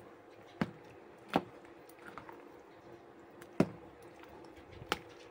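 Spoon stirring mayonnaise-dressed macaroni salad in a plastic container, with four sharp knocks of the spoon against the container.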